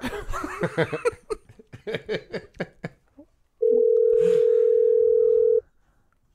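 Telephone ringback tone on an outgoing call: one steady two-second ring over the line, after a few seconds of low voices.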